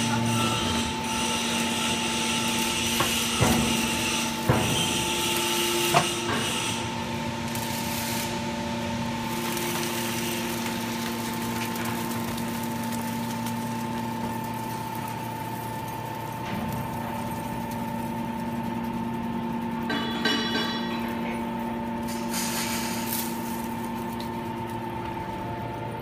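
Hydraulic power unit of a 200-ton automatic metal shaving baler running with a steady hum while the press pushes out a compacted bale of steel shavings. A few sharp metallic knocks come in the first six seconds, and there is some rattling about twenty seconds in.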